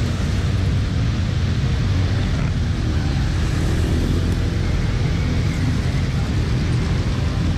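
Engines of a column of motorcycles riding slowly past at low revs, a steady low rumble of many bikes together.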